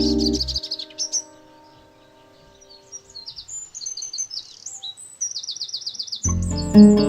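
Songbirds chirping, with a rapid trill of repeated high notes in the middle. Background music fades out about half a second in and starts again near the end.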